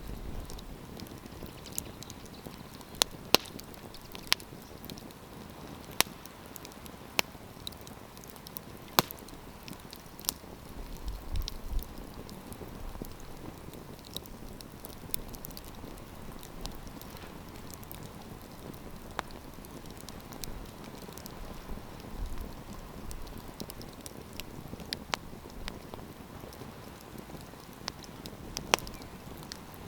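Wood campfire crackling: irregular sharp pops and snaps, a few to several seconds apart, over a steady soft hiss of burning.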